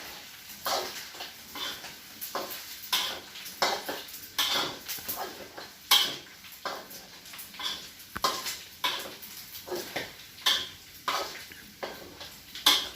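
Metal kitchen utensils clinking and scraping against pots and dishes in a run of irregular clatters, about two a second.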